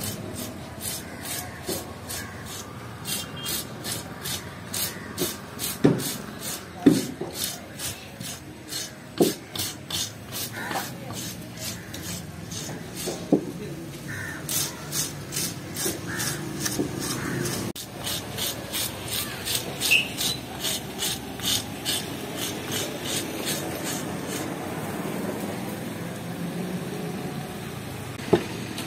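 A hand-held fish scaler scraping the scales off a large fish in quick, even strokes, about two to three a second, with a few heavier knocks in the first ten seconds. The scraping stops near the end.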